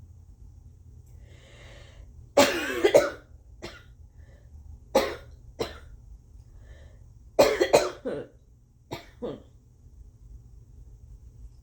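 A woman's phlegmy coughs from a cold she suspects is slight, in four short bouts of one to three coughs each.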